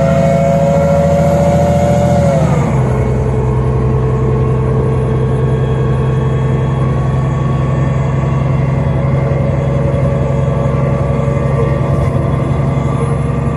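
Iveco Cursor 8 CNG engine and Voith D854.5 automatic gearbox of a 2009 Solaris Urbino 12 CNG city bus, heard from inside the cabin under acceleration. A whine climbs slowly, then drops in pitch about two and a half seconds in as the gearbox shifts up, and the bus runs on at a steady lower note.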